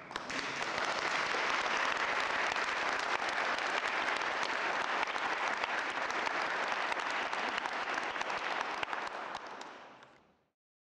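Audience applauding: dense, steady clapping from many hands that fades out near the end.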